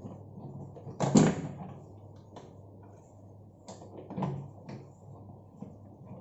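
Knocks and light clicks from washing machine parts being handled during reassembly, with a loud clunk about a second in and a smaller one around four seconds.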